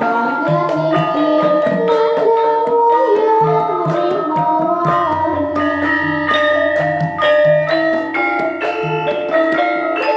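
Javanese gamelan ensemble playing: struck bronze metallophone notes ringing over a kendang drum pattern, with a female voice singing in the first few seconds. A deep gong hum comes in about five seconds in and fades near nine seconds.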